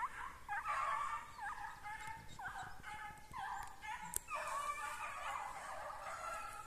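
Hunting dogs yelping while working a hare: a run of short, high yelps that rise and fall in pitch, several overlapping, with one sharp click about four seconds in.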